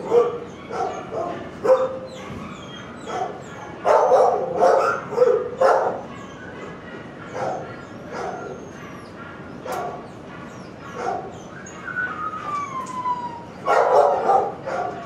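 Shelter dogs barking on and off, with yips. There is a falling whine about twelve seconds in and a loud cluster of barks near the end.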